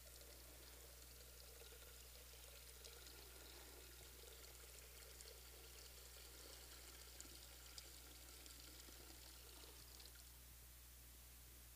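Faint trickle of water being poured into a baptismal font, lasting most of the stretch and stopping near the end, over a low steady hum.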